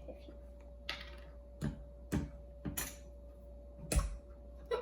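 Handling noise from slime-making supplies, most likely the activator bottle and cup: about five sharp knocks and clicks, the loudest near the end, over a faint steady hum.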